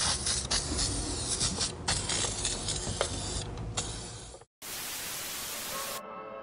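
Aerosol can of corrosion guard spraying onto a boat engine, an even hiss in several spurts with small clicks. About four and a half seconds in it cuts off, and a burst of even static hiss follows, with music starting near the end.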